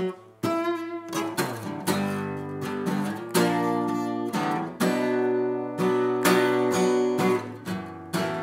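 Steel-string acoustic guitar playing on its own, a run of chords struck one after another and left to ring.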